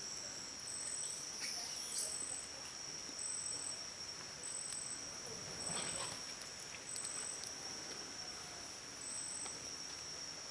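Insects calling: a steady high-pitched drone with a second, higher chirp repeating roughly once a second over it.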